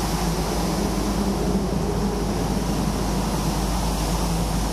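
Steady drone of an oil tanker's running machinery on deck: an even low hum under constant noise, without change.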